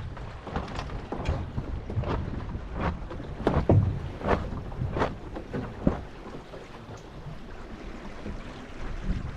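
Small sailing dinghy under way: irregular knocks and splashes of water against the hull, over a low wind rumble, with the loudest hit about three and a half seconds in.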